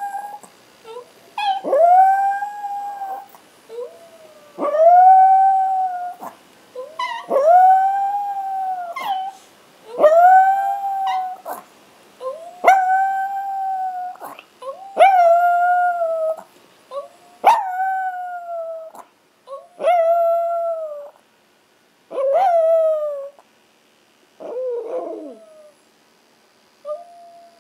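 A Chihuahua howling: about ten drawn-out howls in a row, each rising sharply to a high held note and sagging at its end. The later howls grow shorter and drop in pitch, and the howling tapers off near the end.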